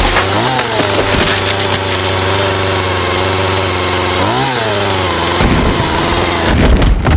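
Chainsaw engine running steadily. It revs up and falls back twice, about half a second in and again around four and a half seconds. Near the end come a few heavy crashing impacts.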